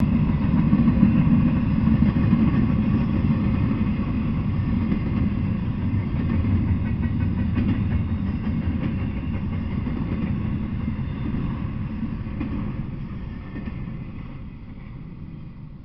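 Double-stack intermodal freight train's container well cars rolling past on the rails, a steady low rumble with wheel and rail rattle. It fades away over the last few seconds as the end of the train passes.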